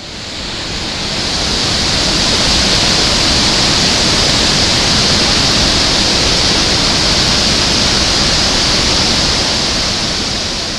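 Victoria Falls' water crashing down: a loud, steady rushing noise that swells in over the first couple of seconds and then holds even.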